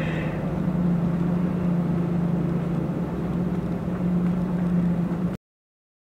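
Pickup truck engine running as the truck drives, heard from inside the cab: a steady hum over road noise, shifting slightly up and down in pitch. It cuts off suddenly about five seconds in.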